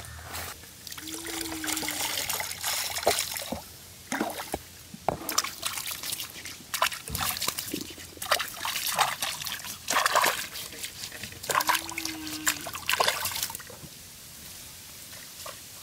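Liquid trickling and sloshing with many small wet clicks and splatters, as pomegranate seeds and water are handled. The sound dies down about two seconds before the end.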